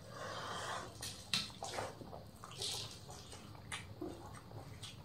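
Wet eating sounds: rice being mixed with curry by hand on banana leaves and chewed, heard as soft squishes and swishes with short sharp clicks scattered through.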